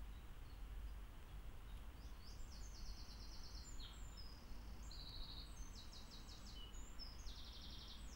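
A small songbird singing from about two seconds in: several short phrases of fast, high trills with brief single notes between them. Under it runs a steady low rumble and hiss of background noise.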